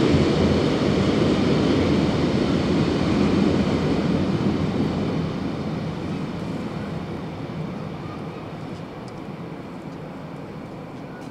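A slow freight train of open aggregate wagons rumbling away as its last wagon clears, the noise dying down steadily over several seconds.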